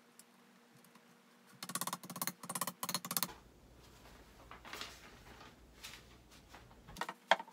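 Quiet handling noise: a cluster of short crackly rustles about two seconds in, then softer scattered rustling as the paper instruction sheet is picked up and handled.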